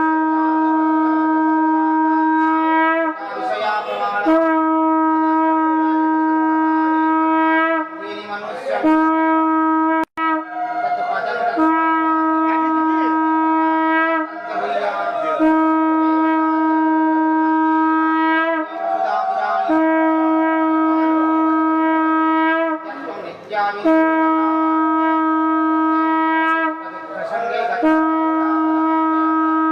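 Conch shell (shankha) blown in long, steady, loud blasts of about three seconds each, repeated one after another with short breaks for breath, about eight blasts in all, as at the opening of the temple doors for the Mangal Aarti.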